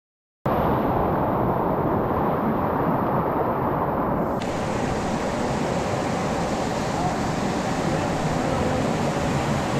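Steady rush of creek whitewater and a small waterfall pouring and splashing onto the water, close to the microphone. It cuts in suddenly just under half a second in and turns brighter and hissier about four seconds in.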